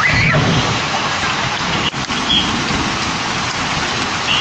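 Steady rain falling on a driveway and lawn, heard through a Ring doorbell camera's microphone, with a brief dropout in the sound about two seconds in.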